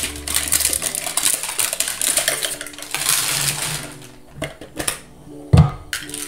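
Foil booster-pack wrapper crinkling as it is handled, loud and continuous for about four seconds, then a few light taps and one sharp thump about five and a half seconds in as the packs and cards are handled.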